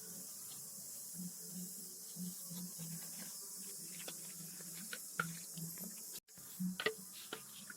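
Faint steady hiss with a few light knocks and clicks, most of them near the end, as a chicken waterer is handled during cleaning.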